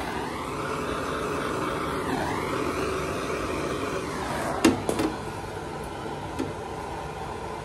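Small hand-held propane torch burning with a steady hiss while it warms a plastic gas hose. The hiss drops away after about four and a half seconds, followed by a couple of sharp clicks.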